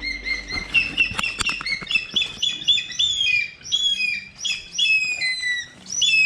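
A bird calling over and over in short, high notes that each fall in pitch, about two a second, with a few sharp clicks in the first second and a half.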